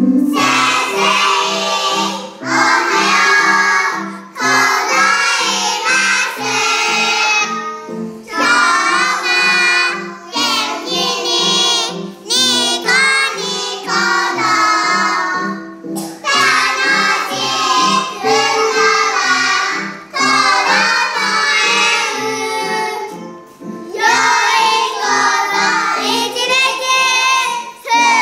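A group of five- and six-year-old kindergarten children singing their kindergarten's song together, phrase after phrase with short breaths between. An instrumental accompaniment with a steady low bass line plays beneath the voices.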